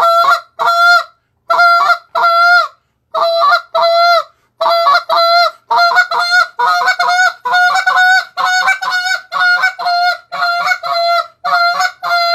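Goose call blown in a run of short honking notes, each breaking between a low and a high tone. The notes come in spaced pairs at first, then after about five seconds they speed up into an even string of about two a second.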